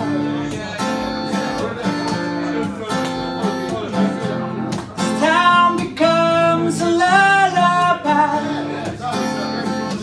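Acoustic guitar strummed steadily, with a man singing a held, drawn-out vocal line over it about five to eight seconds in.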